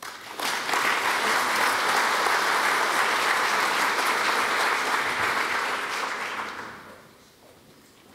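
Audience applauding, coming in within the first second, holding steady, then fading out over about a second near the end.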